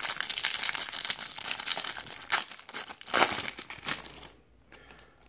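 Foil trading card pack wrapper crinkling and tearing as it is ripped open and peeled off the stack of cards. The dense crackling dies away about four seconds in.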